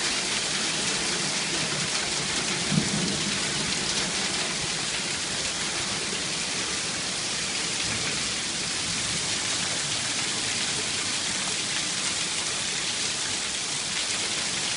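Hail and rain pelting down in a steady, dense hiss, with one sharper knock about three seconds in.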